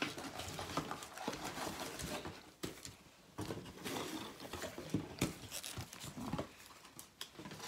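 Trading-card packs being taken out of their cardboard box and set on the table: irregular rustling and crinkling of the pack wrappers, with light taps and clicks.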